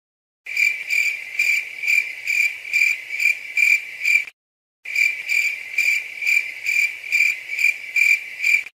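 Stock cricket-chirp sound effect: a steady high trill pulsing about two and a half times a second, in two runs with a short break between them.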